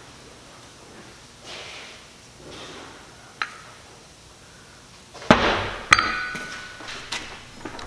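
Metal parts being handled and set down on a workbench: a light click, then a loud clank about five seconds in, followed by a sharp metallic hit that rings briefly, and a few lighter clinks.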